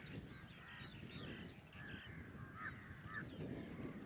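A flock of birds over a garbage dump, calling faintly in many short, overlapping calls, with a low steady rumble underneath.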